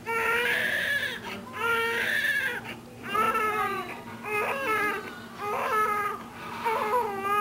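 Newborn baby crying: a run of about six high, wavering wails, each about a second long with short breaths between.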